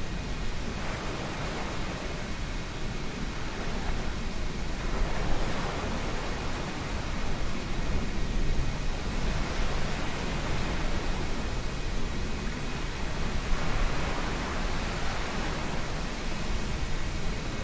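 Boeing 777 jet engines at takeoff thrust, a steady rushing roar that swells and eases, with wind buffeting the microphone.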